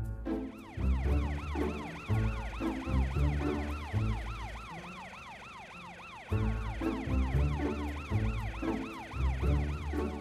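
Cartoon emergency-vehicle siren wailing in quick rising-and-falling sweeps, several a second, over background music with a rhythmic bass line that drops away briefly mid-way.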